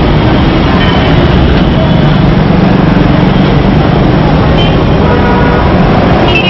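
Loud, steady road traffic noise with faint voices mixed in.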